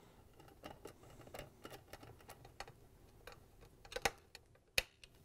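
Faint, irregular ticking and clicking of a Phillips screwdriver turning screws into a stand mixer's cover, about two clicks a second, with two sharper clicks near the end.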